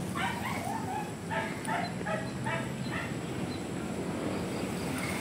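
Siberian husky giving a quick run of about eight short, high, whiny yips over the first three seconds.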